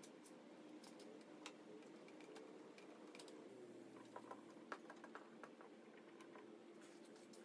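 Near silence: faint light taps and clicks of wooden blocks and clamp parts being handled on the workpiece, more of them about four to six seconds in, over a low steady hum.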